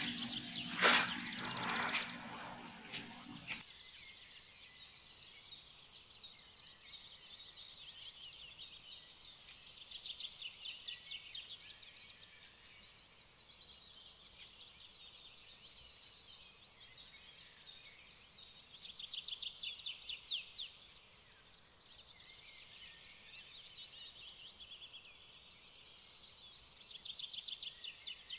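A brief rustle with a knock about a second in, stopping abruptly after a few seconds. Then high-pitched, rapidly pulsed chirping trills come in bouts every several seconds over a faint steady hiss.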